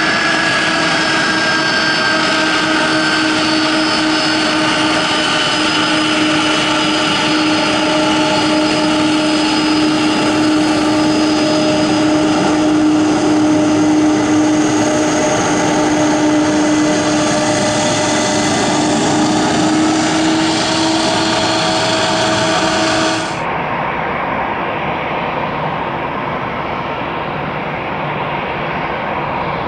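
Boeing 767 jet engines at taxi power passing close by, a steady whine whose pitch slowly falls. About 23 seconds in it cuts off abruptly to a quieter, duller engine noise without the whine, from the jet far off on the runway.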